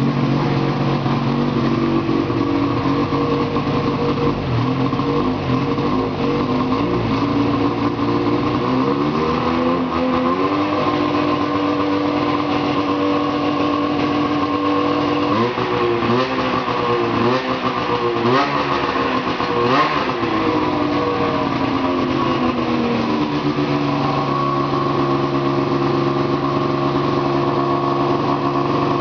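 Ski-Doo MXZ 600 snowmobile engine running, idling steadily at first. It is then raised to a higher steady speed, blipped up and down several times, and settles back to idle near the end.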